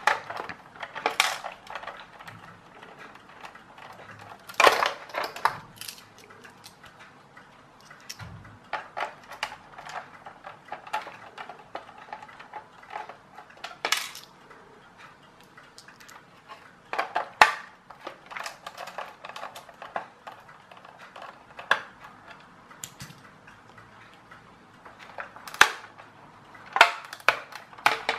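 Irregular clicks, taps and clatters of a screwdriver, small screws and hard plastic parts as the screws holding an XQ Toys RC M1A2 Abrams tank's plastic turret ring gear are taken out. Near the end the ring gear is lifted out of the hull.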